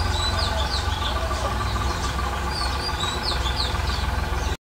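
Small birds chirping repeatedly over a steady low rumble; the whole sound cuts off suddenly near the end.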